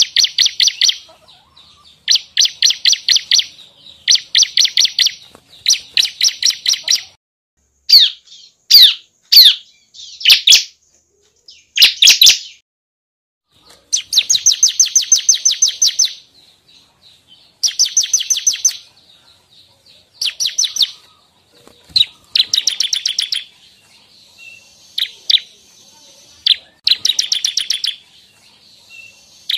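Bar-winged prinia (ciblek) singing: loud, high-pitched phrases of rapidly repeated notes, each about a second or two long, with short pauses between. About a third of the way through, a few single sharp sweeping notes come instead of trills.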